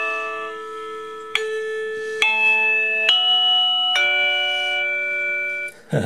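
KooPower wireless doorbell receiver playing an electronic chime tune: a slow melody of bell-like notes, a new one about every second, dying away just before the end.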